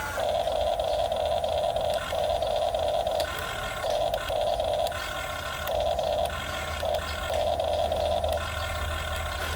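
RC model excavator's small electric motors whining in repeated bursts of half a second to two seconds, starting and stopping with each movement of the controls, over a low steady hum.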